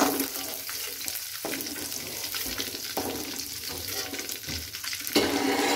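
Hot cooking oil sizzling in a metal wok as fried chicken gizzards are scooped out, with a metal spatula scraping against the pan a few times, loudest near the end.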